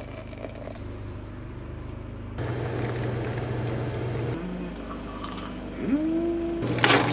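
Hot water poured from a stovetop kettle into a stainless steel French press, then brewed coffee poured from the press into a ceramic mug. Near the end comes a short pitched vocal sound and a sharp sip from the mug.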